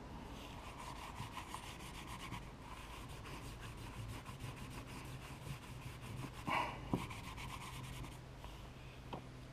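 Rag wet with acetone wiped over a fibreglass boat hull: a quick run of rubbing strokes in the first couple of seconds, then softer wiping, with a brief scuff and a sharp tick near seven seconds.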